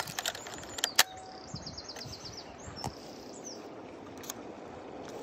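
A few sharp mechanical clicks from a Mamiya 645 medium-format film camera being worked by hand for a long exposure, the loudest about a second in and fainter ones later, over a steady background hiss. A bird gives a brief trill of rapid high notes near the middle.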